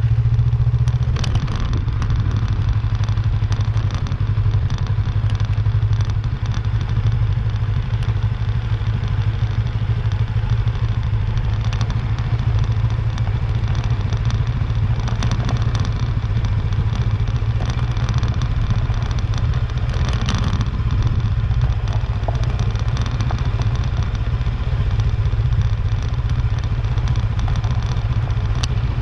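Motorcycle engine running steadily at a constant, low engine speed while riding, with gravel crackling and clattering under the tyres.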